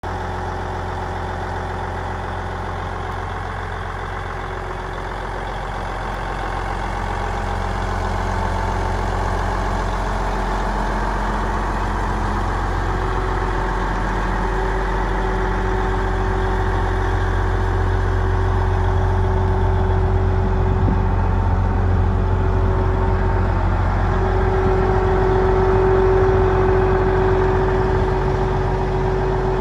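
Case IH 9370 tractor's Cummins six-cylinder diesel idling steadily, growing louder a few seconds in and again near the end.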